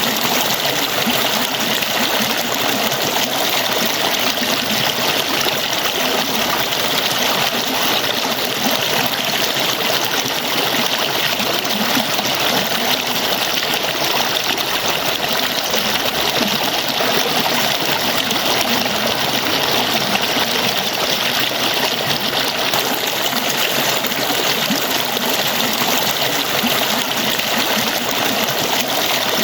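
Water falling steadily, an even, unbroken splashing noise that does not change.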